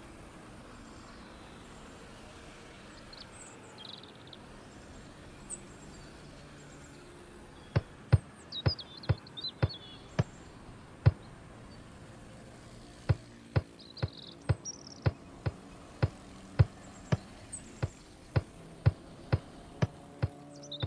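Birds chirping over a steady outdoor background. From about eight seconds in, a football is juggled: sharp thuds of the ball against the foot, irregular at first, then evenly at about two a second.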